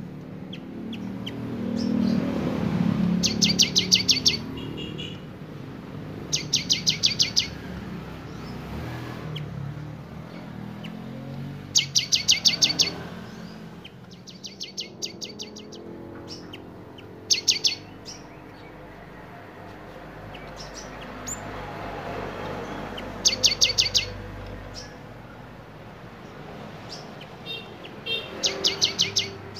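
Caged gelatik batu (cinereous tit) singing short bursts of rapid, evenly spaced sharp high notes, about seven bursts each under a second long, every few seconds, over a faint low background noise.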